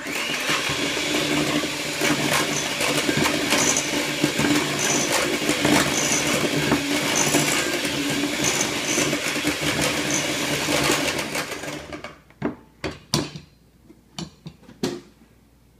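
Electric hand mixer running steadily with its beaters whisking buttercream frosting (butter and powdered sugar) in a glass bowl. It stops about twelve seconds in, and a few sharp knocks follow.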